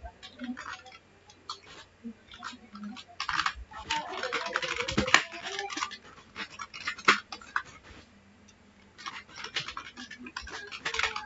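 Computer keyboard typing: irregular bursts of key clicks, busiest about four to five seconds in and again near the end, with short pauses between.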